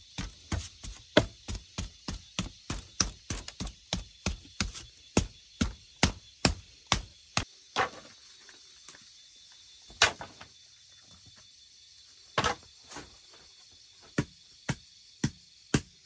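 A wooden pole rams damp earth into a bamboo form to build up an earthen stove, with dull thumps about twice a second. The thumping breaks off for a few seconds with only a few scattered thuds, then resumes as a flat wooden paddle beats the packed mud block.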